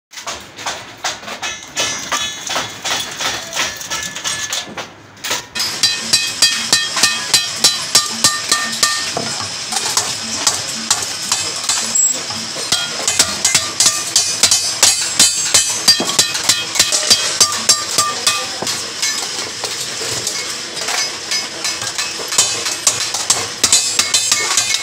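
A hand hammer striking a galvanized sheet-steel bucket body over a steel stake, closing its folded side seam. The blows come quickly, a couple a second, each giving a sharp metallic clang with a bright ring. There is a brief lull about five seconds in.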